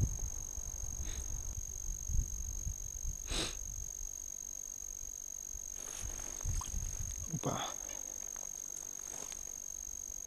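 Soft rustles and low knocks of clothing and hands handling a short ice-fishing rod over the ice hole, with a brief swish about three seconds in, over a steady high-pitched whine.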